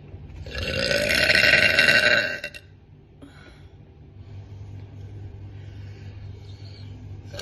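A woman lets out one long, loud burp lasting about two seconds, starting about half a second in.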